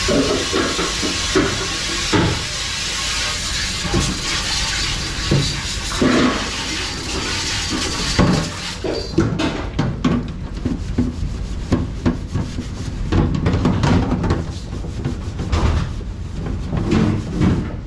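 Dish-pit work: a steady rush of spraying water that stops about halfway through, with dishes and utensils clattering and knocking throughout.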